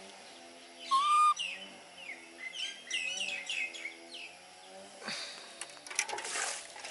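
Baby monkey squealing once, loud and held, then giving a quick run of high chirps, wrapped in a towel after its bath. Near the end comes a burst of rustling as it is handled in the towel.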